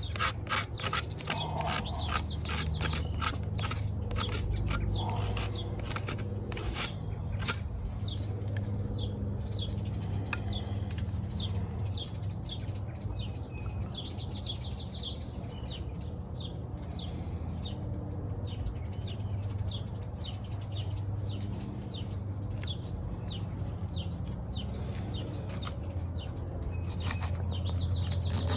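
Repeated short scrapes and clicks of a knife shaving green cherry wood during spoon carving, with bird chirps over a steady low hum.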